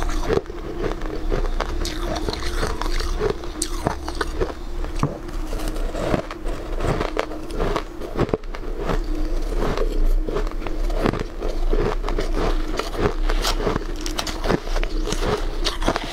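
Close-up crunching and chewing of shaved ice, a steady stream of crackles and clicks, with a metal spoon scraping against the steel bowl.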